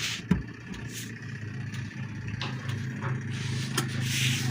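Washing machine electric motor running with a steady low hum that grows louder, with a few sharp clicks and knocks over it.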